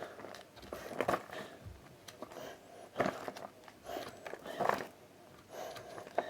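Comic books being handled: a few short rustles and soft taps, scattered a second or two apart.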